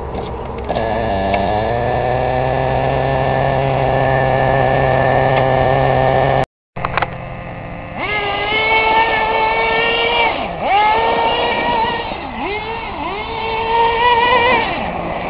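Team Associated RC10GT's small nitro two-stroke glow engine running: a steady whine with a short rise in pitch early on, then, after a brief cut, revving higher, its pitch dropping sharply and climbing back a few times as the throttle is let off and reapplied.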